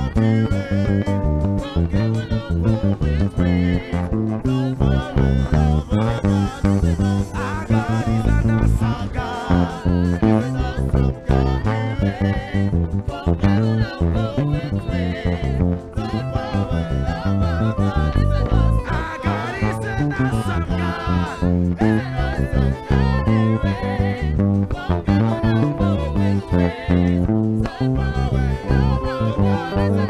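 Background music: a band with bass guitar and guitar and singing, with a steady beat.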